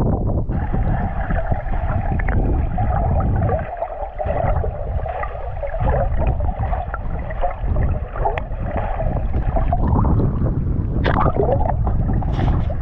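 Muffled gurgling and sloshing of water heard with the camera's microphone held just under the surface beside a kayak. About ten seconds in it comes back up into the air, with a few sharp splashes and drips.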